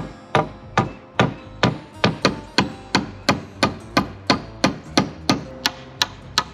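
Hammer striking in a fast, even run, about three sharp blows a second.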